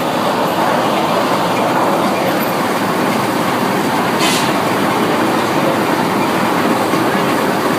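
Sawmill machinery running: a loud, steady mechanical noise that keeps on evenly without breaks.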